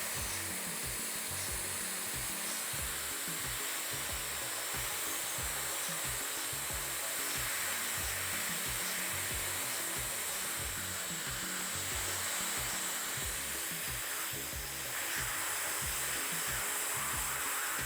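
High-speed dental handpiece running a pointed football-shaped diamond bur with its air-water spray hissing steadily. It is shaping and refining the grooves of a freshly placed composite filling.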